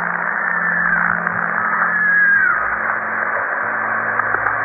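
Steady, radio-like static hiss with a low hum under it. Two faint whistling tones slide downward through it, about a second in and again around two seconds.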